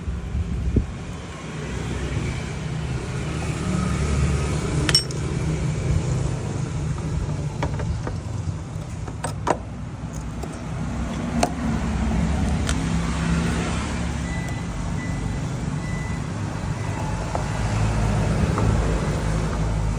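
A motor vehicle engine running, its low rumble rising and easing, with scattered sharp clicks and knocks.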